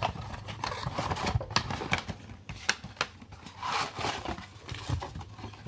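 Trading cards being handled and flipped through by hand: scattered light clicks and taps with brief rustles of card stock.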